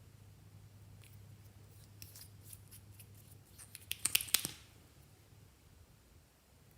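Scissors snipping: a run of quick sharp snips that grows busier and louder about four seconds in, then stops.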